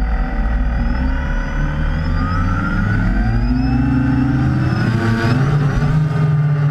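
Quadcopter's four brushless motors (Tiger MT2216 900 kV) with 8x5 propellers spinning with a whine. The pitch glides up about three seconds in and again about five seconds in as the throttle is raised for takeoff.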